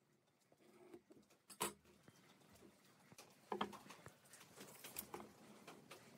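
Near silence broken by a few faint knocks and clicks of hand tools being handled on a wooden workbench, the sharpest about a second and a half in and another about three and a half seconds in.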